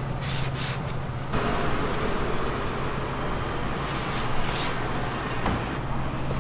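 Street-side background noise: a steady low hum under traffic-like noise that swells about a second and a half in, with two short high hissing bursts, one near the start and one about four seconds in.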